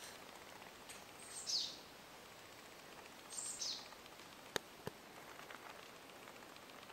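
A forest songbird calling: a short, high note that falls in pitch, heard twice about two seconds apart over faint outdoor background. Two sharp clicks come a little past the middle.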